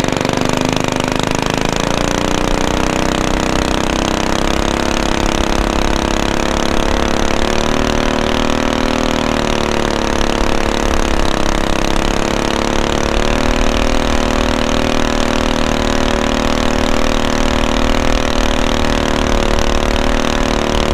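Predator 212 single-cylinder engine on a mud motor kit, souped up from 6.5 to about 9 horsepower, running hard and pushing a small aluminium jon boat upstream. It runs loud and steady, its pitch wavering slightly.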